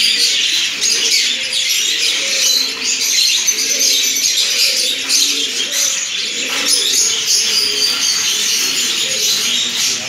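Many caged finches and small parrots chirping and twittering all at once: a dense, continuous din of high calls, with lower curving calls beneath.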